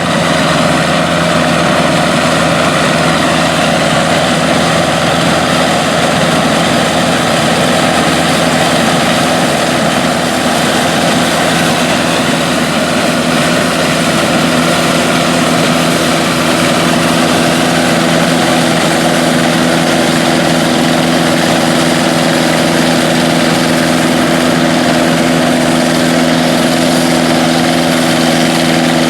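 Classic combine harvester running steadily while harvesting corn: an even engine drone with machinery noise and no change in speed.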